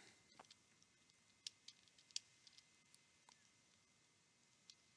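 Near silence broken by a handful of faint, irregular clicks of computer keyboard keys as a short password is typed.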